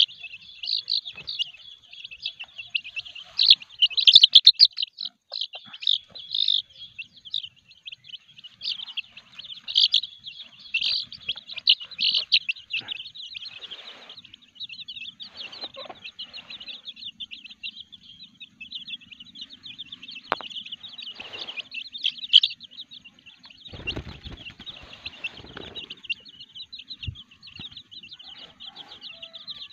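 A brood of young village chicks peeping continuously in quick, high-pitched chirps, loudest in the first half.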